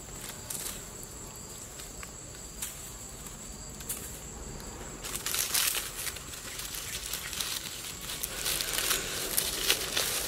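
Fresh leaves rustling and crinkling as they are pressed and stuffed into the mouth of a charred bamboo tube. The rustling grows loud about halfway through. Before that there are only faint clicks and a thin steady high tone.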